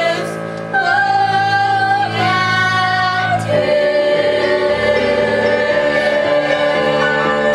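Musical theatre cast singing a show tune with accompaniment. From about three and a half seconds in, the voices hold one long chord.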